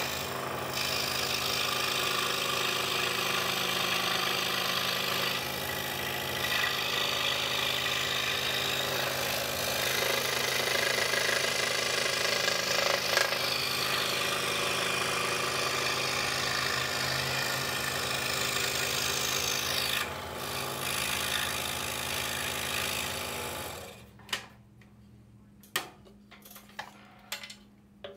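DeWalt scroll saw running and cutting wood with a fine Olson Mach Speed No. 3 blade, a steady motor hum under the rasp of the reciprocating blade. The saw stops about 24 seconds in, leaving a few light clicks.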